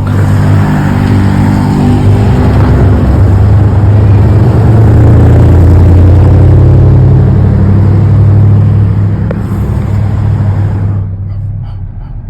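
Car engine running loudly, a deep steady drone with a rushing hiss over it, that starts suddenly, swells through the middle and dies away about eleven seconds in.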